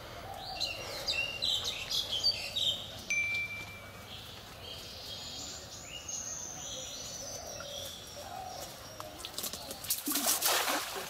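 Birds chirping and calling with high, thin notes. Near the end, a brief loud burst of swishing and splashing as a cast net is thrown and lands on the pond water.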